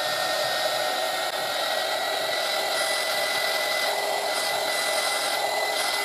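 Handheld electric heat gun running steadily, its fan noise and motor whine holding an even pitch. It is heating solder-seal wire connectors so the solder melts and the sleeves shrink.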